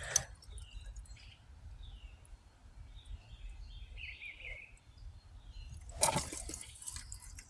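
Quiet outdoor ambience: a low rumble with faint scattered bird chirps, and a brief rush of noise about six seconds in.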